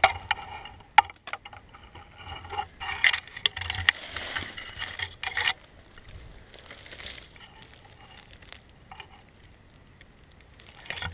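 Footsteps and rustling in dry leaf litter, with scattered sharp clicks and crackles of twigs. It grows quieter over the last few seconds.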